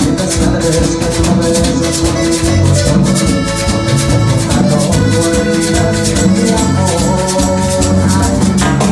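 Band playing an instrumental passage of a Latin dance song: a steady beat of shaker and drums, with held melodic notes coming in about three seconds in.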